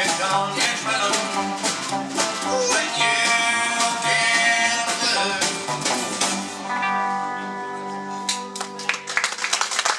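Live country-rockabilly band playing an instrumental passage: acoustic guitar strumming over a plucked upright double bass and a drum kit, with long held notes in the last few seconds.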